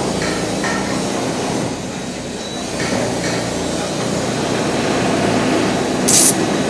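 Steady machinery noise, then a short, loud hiss about six seconds in: a drawn-arc stud weld firing as a stud is welded on.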